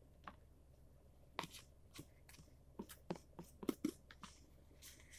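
Metal spoon scraping and clinking against a bowl, about ten short sharp scrapes and clicks over a few seconds as the last of a pudding is scooped out.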